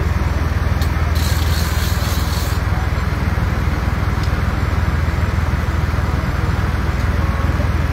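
Tractor diesel engines running steadily close by, a continuous low rumble. A short hiss comes in about a second in and lasts about a second and a half.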